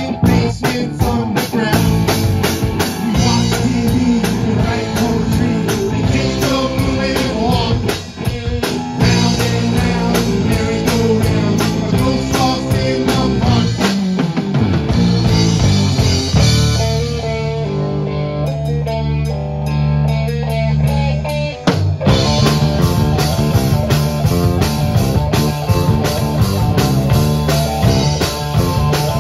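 Live rock band playing, electric guitar and bass guitar over a drum kit. About two-thirds of the way through, the drums and cymbals stop and the band holds low notes for several seconds, then the full band comes back in together with a hit.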